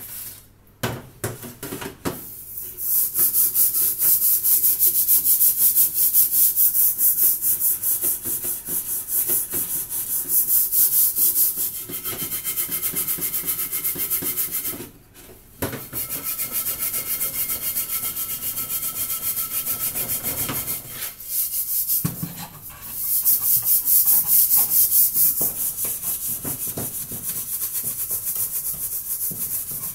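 Rapid back-and-forth scrubbing of a blackened metal cooking pan coated in a gritty white cleaning paste, a steady scratchy hiss of strokes. It pauses briefly near the start, about halfway through, and again about two-thirds of the way in.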